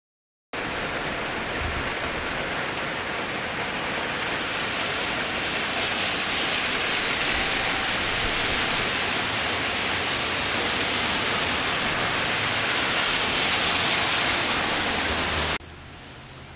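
Heavy thunderstorm rain falling in a steady, loud hiss. Near the end it drops suddenly to a much quieter rain sound.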